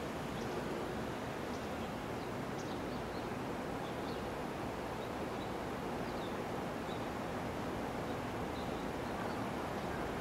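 Steady, even outdoor background noise with faint, scattered bird chirps. No wheel or rail-joint sounds are distinct.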